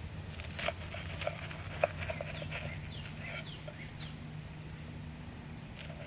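Knife cutting through a stack of dark toasted bread: a run of crunchy crackles, with one sharp crack about two seconds in.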